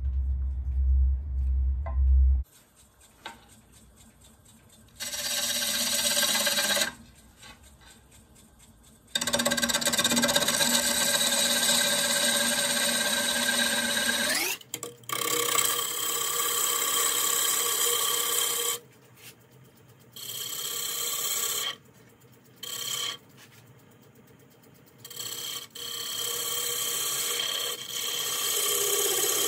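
Low thumping for about the first two seconds. Then a bowl gouge cuts a spinning square walnut-and-cherry bowl blank on a Laguna wood lathe, in a run of passes a few seconds long with short quieter pauses between them, as the outside of the bowl is turned down.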